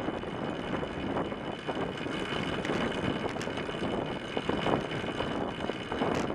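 Steady rushing wind and tyre noise from a track bicycle riding fast on the wooden boards of a velodrome, picked up by a camera mounted on the front fork.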